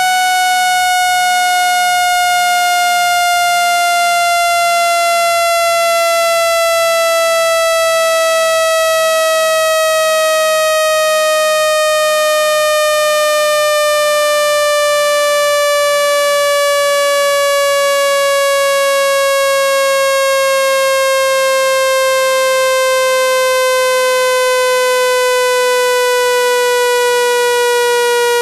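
Electronic speaker-cleaning tone, played to shake water out of a phone speaker. It is a steady, buzzy tone with many overtones that glides slowly and evenly downward in pitch.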